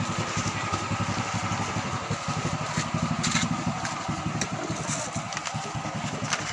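A small engine idling with a steady, rapid putter, with a few light clicks over it.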